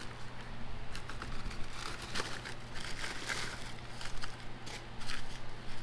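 Plastic mailer bag and bubble wrap crinkling and rustling as they are handled, with scattered light clicks. A steady low hum runs underneath.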